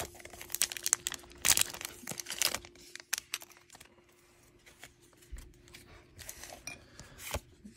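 Foil wrapper of a Pokémon trading-card booster pack crinkling as the opened pack is handled and the cards are slid out. The crinkling comes in dense bursts for the first two or three seconds, then dies down to faint rustling of cards, with one sharp click near the end.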